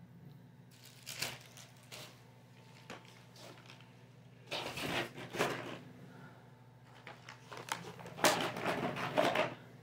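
Rustling and crinkling of a shopping bag and packaging as groceries are packed back into it, coming in three bursts, the loudest near the end.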